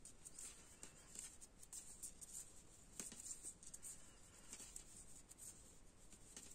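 Faint clicking and rustling of knitting needles and yarn as stitches are knitted, with one slightly sharper tick about three seconds in.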